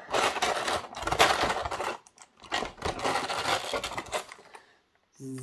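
Clear rigid plastic blister packaging being handled and pried open, crackling and clicking in two spells of about two seconds each.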